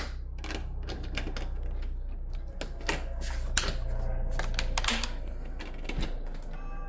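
Irregular clicks and knocks of a door being worked open, latch and lock, over a low steady hum.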